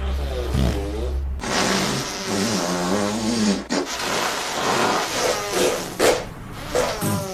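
Fart sound effects, several long ones in a row, each with a wavering pitch, one running almost into the next.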